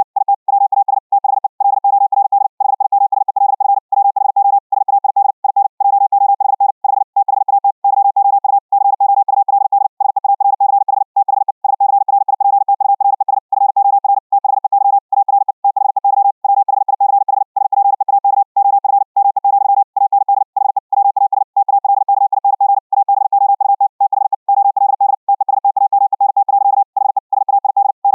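High-speed Morse code (CW) at about 60 words per minute: one steady beep keyed on and off in a rapid, unbroken stream of dots and dashes, with short gaps between characters and words.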